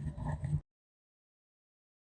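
Dead silence: a brief faint trailing sound in the first half-second, then the audio cuts off abruptly to complete silence.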